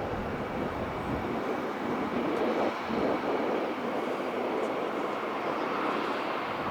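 Jet airliner engine noise: a steady rushing sound, loudest about two to three seconds in.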